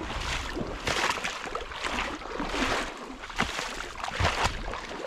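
A person in waders wading through shallow marsh water, with a splash and slosh at each stride.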